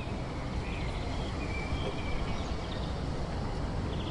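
Outdoor background noise: a steady low rumble with a few faint, short bird chirps.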